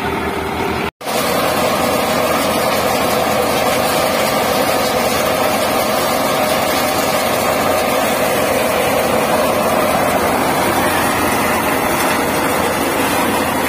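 Tractor-driven soybean thresher running steadily, the tractor engine and threshing drum making a continuous mechanical drone. The sound cuts out briefly about a second in.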